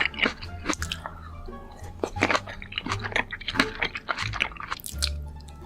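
Close-miked chewing and biting of food, with many short sharp clicks, over background music with a low bass line.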